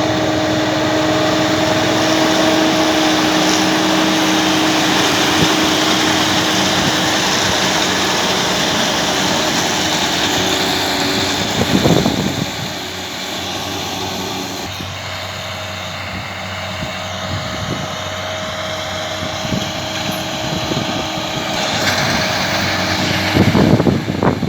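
New Holland T6 tractor running under load, driving a New Holland round baler, a steady mechanical drone with a hum that fades about halfway. Brief low rumbles come about halfway and again near the end.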